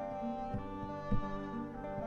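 Recorded Sephardic song played by a small ensemble: held melodic notes over a steady low beat.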